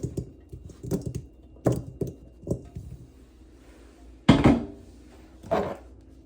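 Kitchen utensils and a container knocking and thunking on a counter in a series of separate dull knocks, the loudest about four and a half seconds in and another a second later.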